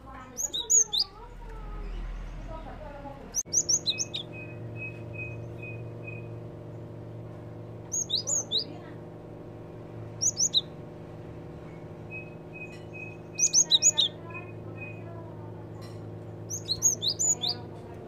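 Cinereous tit (gelatik batu) calling in about six short bursts of rapid, high, sharp notes, spaced a few seconds apart, over a faint steady hum.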